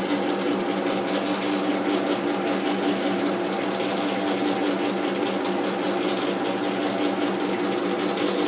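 Metal lathe running steadily with its four-jaw chuck spinning, a constant hum made of several held tones over a steady whirr.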